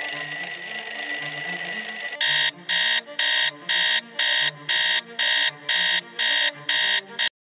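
Alarm clock ringing continuously for about two seconds, then switching to an electronic alarm beeping about twice a second. The beeping cuts off abruptly near the end.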